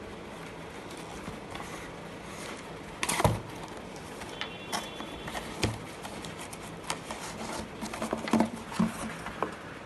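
Hands handling a Pixel 6a phone box and its packaging: scattered light taps, clicks and short rustles over a steady low hum. The loudest is a brief rustle about three seconds in, followed by irregular clicks through most of the rest.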